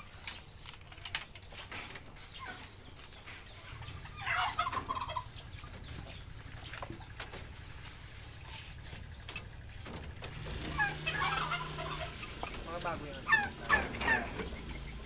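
Chickens clucking: one burst of calls about four seconds in, then a longer run of clucks from about eleven seconds, loudest near the end. Scattered light clicks and rustles run underneath.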